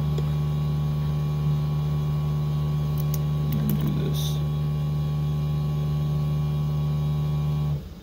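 DIY mini-split heat pump (water-heater conversion) running with a steady hum, then shutting off abruptly near the end. The shutdown is, the owner believes, an error-code stop caused by a loose connection on the thin thermistor wire. A few light clicks come midway.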